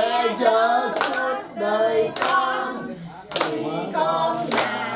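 People singing together while clapping their hands in time, about one clap a second.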